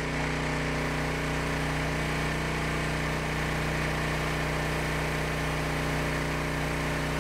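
Harbor Freight 212 cc gasoline engine driving a 2-inch semi-trash water pump, running steadily at one constant speed while it feeds a fire hose.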